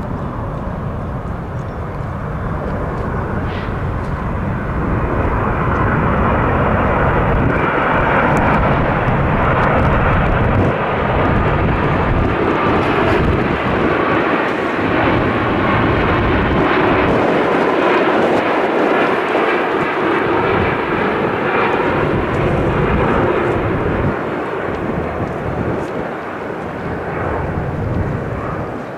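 Boeing 787-8 Dreamliner's two GEnx-1B turbofan engines on approach, landing gear down, passing low overhead. The jet roar builds over the first several seconds, stays at its loudest through the middle, then eases off slightly as the plane moves away.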